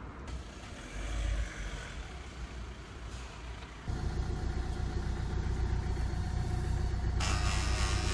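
2008 Renault Laguna's engine idling at about 1000 rpm, heard from inside the cabin. The low engine sound rises suddenly about four seconds in, and a steady hiss joins near the end.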